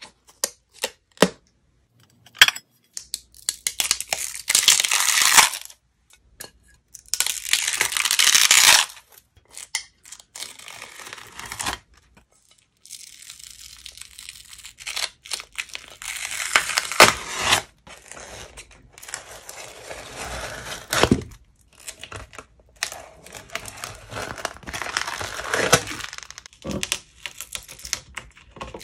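A dried slime film being peeled off plastic and ceramic dishes, a crackly ripping and crinkling as the film lifts away from the surface. It comes in several separate bursts with short quiet gaps between them.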